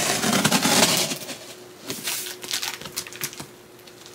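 Knife slitting the packing tape along the top seam of a cardboard box: a scratchy tearing stretch for about the first second, then a run of short crackles and ticks.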